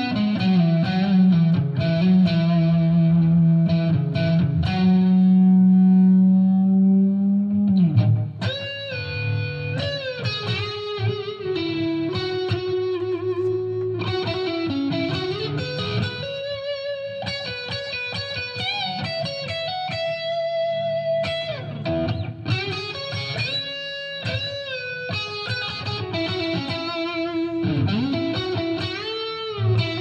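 2019 Squier Classic Vibe '70s Stratocaster electric guitar played through an amp: a lead solo that opens on one long held note with vibrato for about eight seconds, then runs into melodic lines full of string bends and vibrato.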